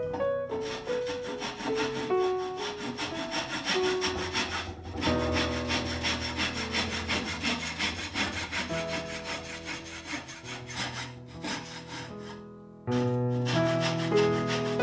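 A brass-backed hand back saw cuts a small piece of wood held in a bench vise, in steady repeated strokes, with soft piano music underneath. The sawing stops near the end and the piano comes forward.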